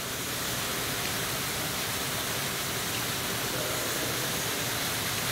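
A steady, even rushing noise like running or falling water.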